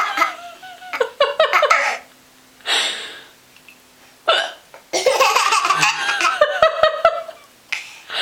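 A baby laughing in repeated bursts, set off by a woman's hiccups, which come as short sudden sounds between the laughs.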